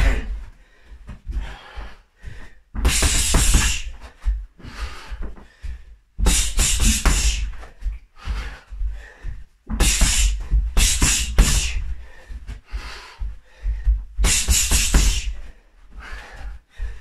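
Boxing gloves striking a freestanding punching bag in fast combinations: several flurries of rapid hits, each about a second long, with quieter pauses of a second or two between them, likely with sharp breaths out on the punches.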